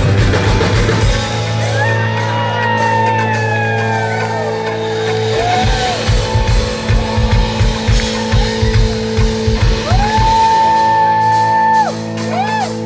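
Live rock band playing, recorded from the audience: amplified guitars and bass with a singer holding long, gliding notes, and a run of drum beats in the middle.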